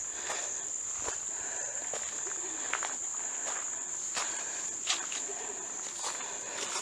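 Steady high-pitched drone of insects, with footsteps at a walking pace along a hiking trail.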